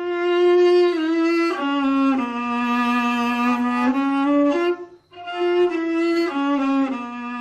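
Violin built from recycled scrap, with a fork among its parts, playing a single slow melody of long bowed notes that step downward. The phrase breaks off about five seconds in and starts again.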